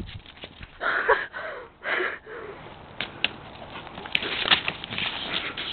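An Olde English Bulldogge snuffling and breathing hard in two short bursts, then crackling and clicking as she mouths and shakes a shipping envelope.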